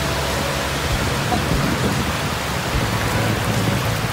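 Steady wash of sea surf on a beach, with wind on the microphone.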